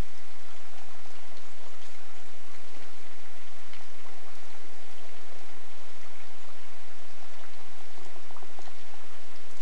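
Steady rain falling, with many small drop ticks scattered through it.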